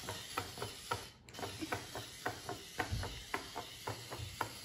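Hexbug Spider robot toy running, its small plastic gear train and legs making a quick, irregular clicking of about three or four clicks a second.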